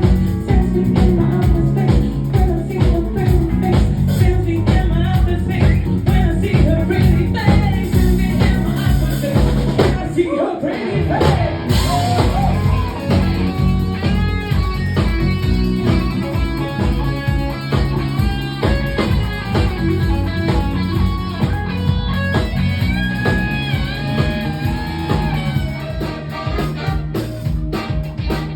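A soul band playing with singing, guitar and drum kit over a steady beat. About ten seconds in the bass and drums drop out for a moment before the music carries on, with a melodic line more to the fore.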